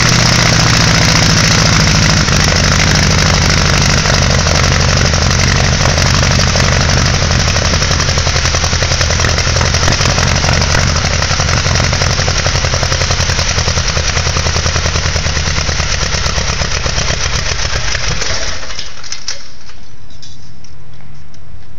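Lycoming O-290 four-cylinder air-cooled aircraft engine running on a test stand with its propeller on its first run after overhaul. It runs steadily, its beat growing more pulsed in the second half, then shuts down about eighteen seconds in, leaving a faint hiss and a few ticks.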